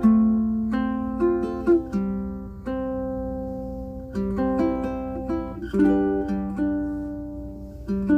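Pono PCMP prototype ukulele with aNueNue Green Planet strings and a low-G string, playing a slow melody of plucked notes. Each note is struck and left to ring out, with low notes sounding under the tune.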